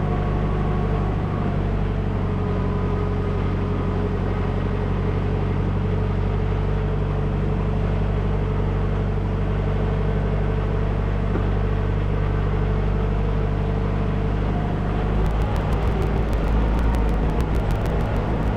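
Tractor engine running steadily at a constant speed, driving a PTO-powered Woodland Mills TF68 PRO wood chipper. About 15 seconds in it gets louder and a rapid crackling starts as wood is fed through and chipped.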